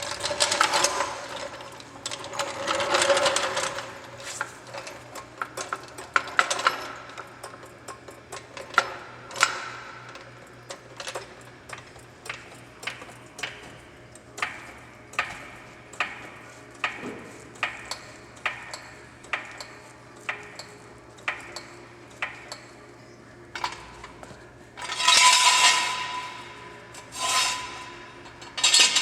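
A hydraulic floor jack being pumped under a pickup truck: a regular metallic click about once a second. Near the start and near the end there are longer bursts of metal clanking and scraping, one with a ringing note, as the jack and jack stands are placed.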